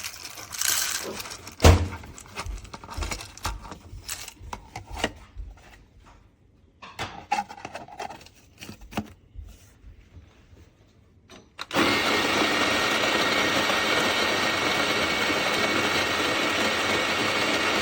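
Scattered clicks and knocks of handling, then about twelve seconds in a Fellow Opus conical burr coffee grinder's motor starts suddenly and runs steadily.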